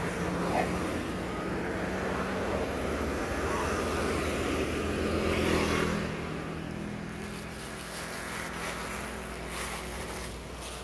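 Motor vehicle engine running nearby with a steady low hum; it swells to its loudest about five to six seconds in, then eases off.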